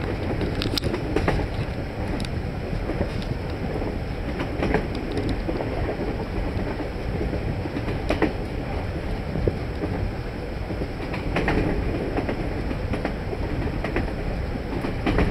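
Passenger train running along the track: a steady rumble of wheels and carriage, with scattered sharp clicks and knocks at irregular intervals.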